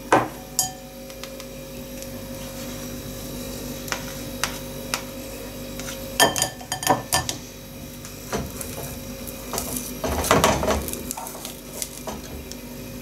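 A metal spoon pressing cooked adzuki bean paste through a mesh sieve and scraping in an aluminium pot: scattered clinks and scrapes of metal on mesh and metal. The clinks bunch up about six seconds in and again, louder, near the end.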